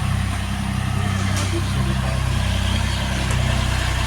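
Tractor diesel engine running at a steady speed, its low, even engine note unchanging.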